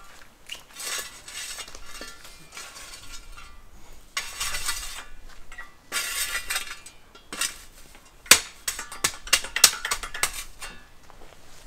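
A metal spade scraping and scooping into gravel and dirt in repeated strokes, followed by a run of sharp clinks as the blade strikes stones, starting about eight seconds in.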